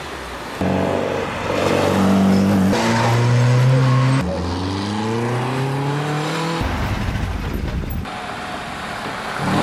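Classic car engine accelerating hard through the gears: the engine note climbs, drops at an upshift and climbs again twice. Near the end it switches abruptly to a steady rushing noise.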